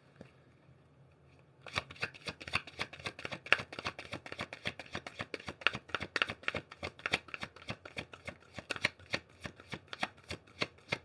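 A tarot deck being shuffled by hand: a quick run of crisp card slaps, about four or five a second, starting about two seconds in.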